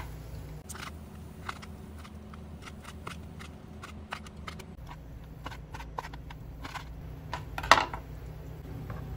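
Chef's knife slicing raw pork on a wooden cutting board: scattered light knife taps against the board, with a louder knock near the end as the knife is laid down on the board.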